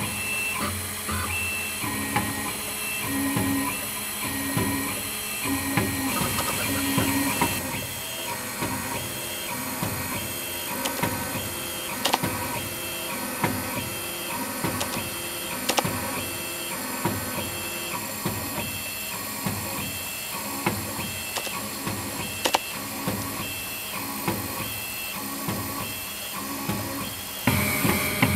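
FARO F1 4-axis CNC engraving machine texturing a brass pen barrel: its motors whine in short repeating moves of the same pitch, a little more than once a second, with a few sharp ticks from the cutter.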